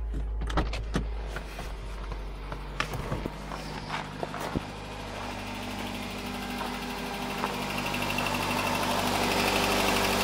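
2009 Nissan Cube's engine just started and idling steadily, with a few sharp clicks and knocks in the first few seconds and the engine growing louder near the end as the hood is approached. A light ticking is heard, which the owner takes for the lifters, and the CVT's pump whine is gone after the overfilled, dirty fluid was drawn off and replaced with fresh fluid and cleaned filters.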